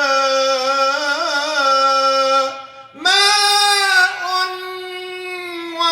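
A high solo voice singing Arabic tarab-style song, drawing out long ornamented notes on the line 'هذه الدنيا'. About two and a half seconds in it breaks off briefly, then comes back on a higher sustained note leading into the word 'ماء'.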